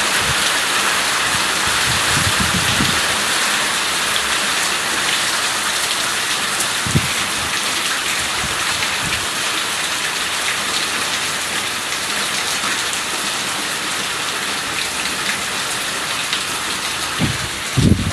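Steady rain falling, an even hiss of drops on surfaces, with a few brief low thuds near the start, in the middle and near the end.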